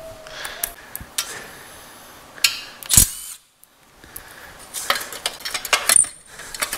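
Metal hand tools clinking and clattering as they are handled on a concrete shop floor, with one sharper knock about three seconds in and a quicker run of clinks near the end.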